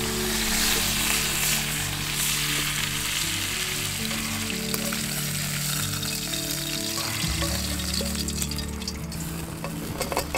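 Fish frying in a pan, a steady sizzle, under background music with held low notes. A few light clinks come near the end.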